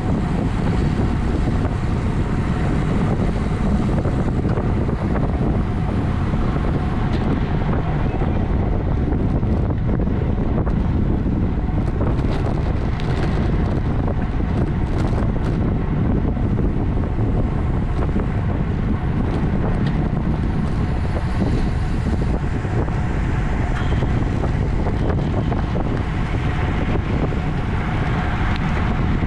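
Steady rush of wind buffeting the microphone of a camera riding on a bicycle at racing speed.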